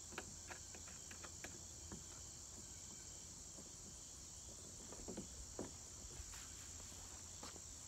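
A steady high-pitched insect chorus runs on without a break. Over it come scattered light clicks and taps of small hardware being handled as a bracket and bolt are fitted on a plastic kayak hull.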